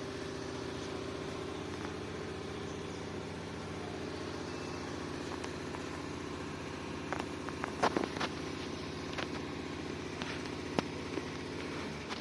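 Electric motor run by the repaired Hpmont 7.5 hp VFD on test, a steady hum at one even pitch, with a few sharp clicks about two-thirds of the way in.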